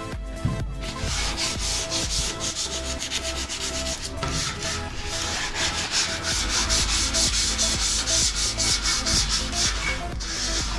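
Sandpaper rubbed back and forth by hand along a rusty steel beam: a rhythmic, scratchy rasp of quick strokes, with a short pause near the start. It is rust-removal surface preparation of the iron before painting.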